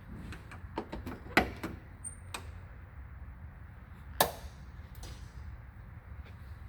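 A few light clicks and knocks in quick succession about a second in, then one sharp knock about four seconds in, over a steady low rumble.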